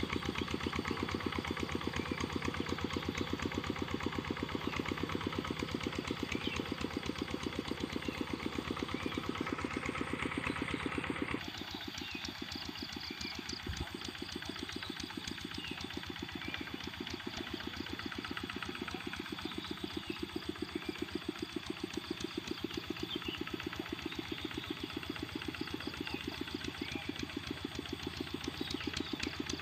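Kubota RD65 single-cylinder diesel engine of a hand tractor running steadily, with a fast, even beat of firing strokes. A little over ten seconds in, the sound changes and becomes slightly quieter, then carries on at the same beat.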